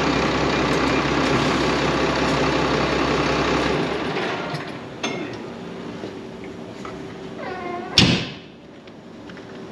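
Tractor diesel engine idling, switched off about four seconds in. Afterwards a short wavering squeal and a sharp loud knock near the end.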